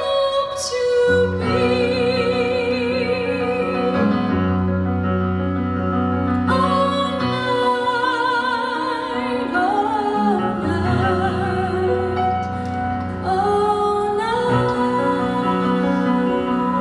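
A woman singing long held notes with vibrato, accompanied by piano chords.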